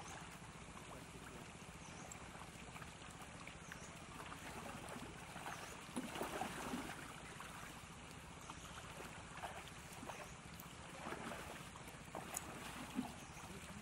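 Shallow muddy water sloshing and splashing as a fishing net is worked through it by hand, with a few louder splashes about six seconds in and again near the end, over a steady background hiss.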